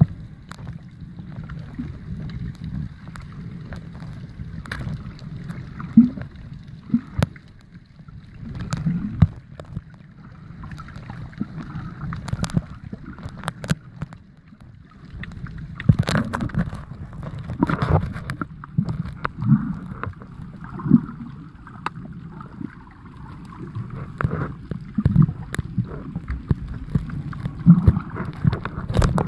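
Water movement heard through a camera held underwater: a muffled, low wash with louder surges every second or two and frequent sharp clicks and knocks.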